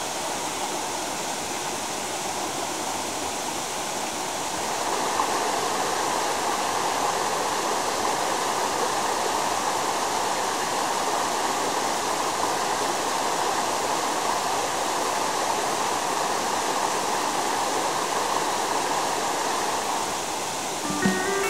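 Steady rush of running water from a rocky mountain stream, growing louder about four and a half seconds in.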